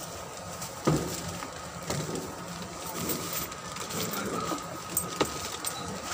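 Handling noise of plastic shopping bags and goods at a shop counter: rustling with scattered knocks and clicks, the sharpest knock about a second in, over a faint steady high hum.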